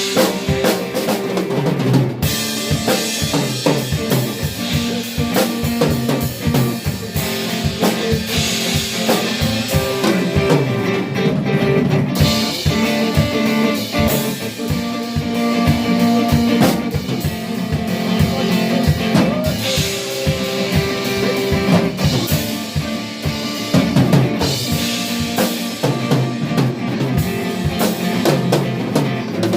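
A live band playing: a drum kit with kick and snare strokes throughout, over held bass and guitar notes.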